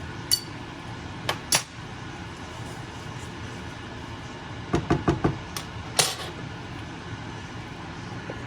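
Kitchen cooking sounds: a few sharp clinks and knocks of utensils against cookware, with a quick run of knocks about five seconds in, over a steady low hum.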